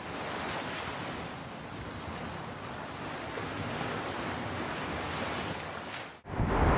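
Steady wash of ocean surf. It cuts off abruptly about six seconds in, and louder outdoor noise starts right after.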